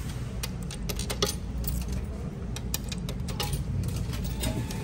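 Coins jingling and clinking as they are fed into the coin slot of a subway MetroCard vending machine: a scatter of short sharp clicks over a steady low rumble.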